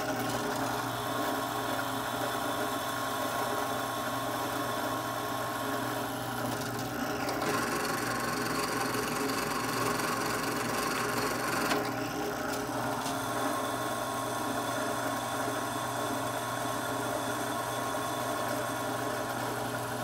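Benchtop drill press running steadily with a bit drilling pin holes through a knife blade blank. The sound shifts for a few seconds around the middle, then settles back.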